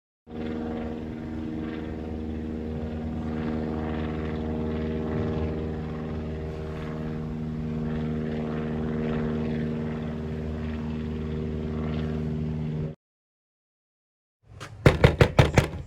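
A steady engine or motor drone holds a constant pitch and cuts off abruptly near the end. After a short gap comes a quick series of loud knocks.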